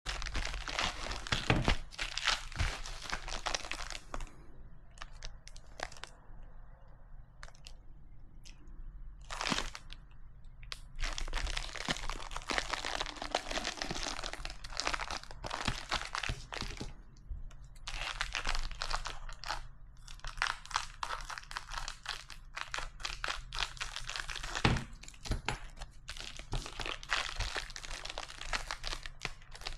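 Plastic packaging crinkling and crackling as a phone case is unboxed and handled, with many sharp clicks and a few louder knocks; it goes quieter for a few seconds after about four seconds in.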